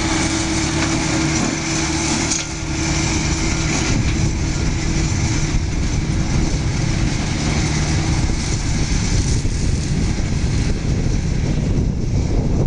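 John Deere tractor engine running under load while driving a Seppi M flail mulcher that is cutting and shredding dry grass: a steady engine drone mixed with the rushing of the mulcher's rotor.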